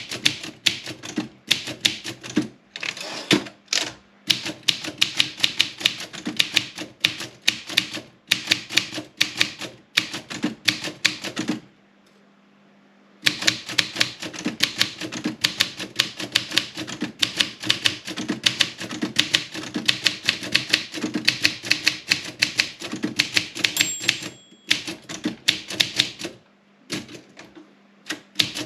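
Olympia SM 7 manual typewriter being typed on quickly, a rapid clatter of keystrokes with the typebars striking the platen. It stops briefly a few times, with a longer pause about twelve seconds in. The margin bell rings once near the end of a line, a little over three quarters of the way through.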